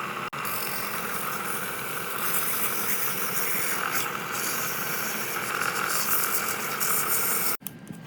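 A small machine running steadily with a rough, buzzing rattle, cutting off suddenly near the end.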